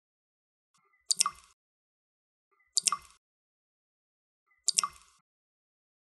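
Water dripping into water: three single drops, one about every two seconds, each a sharp plop with a short ringing tail.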